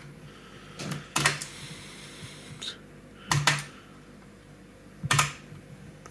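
Plastic retention latches on a server motherboard's memory slots being snapped open to release the RAM modules: several sharp clicks, spaced a second or two apart.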